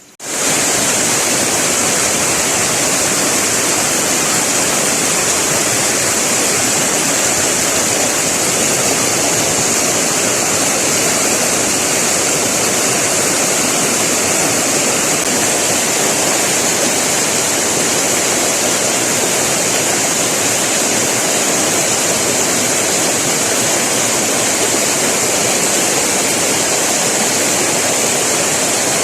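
Steady rush of fast-flowing river water, heard with the camera submerged, starting abruptly and holding an even level.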